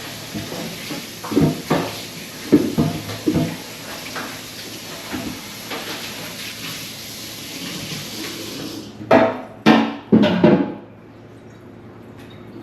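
Water running from a tap while hard items clatter and knock during washing; the water shuts off about nine seconds in, followed by three loud knocks in quick succession.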